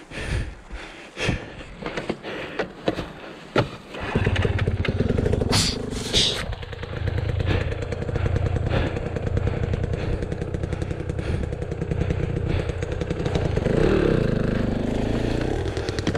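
Scattered knocks and rattles, then about four seconds in an enduro dirt bike's engine picks up and runs steadily under light throttle, heard close up from on board.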